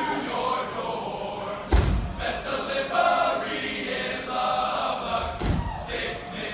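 A large group of men's voices chanting in unison, with two thumps, one about two seconds in and another near the end.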